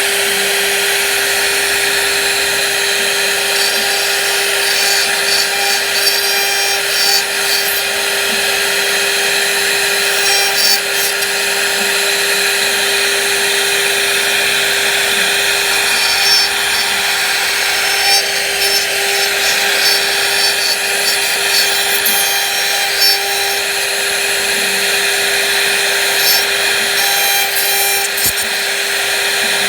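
Power tool running steadily and cutting into wood, with a constant motor whine and small irregular surges as it bites.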